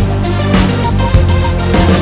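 Electronic background music with a steady beat, under two beats a second, over sustained synth chords.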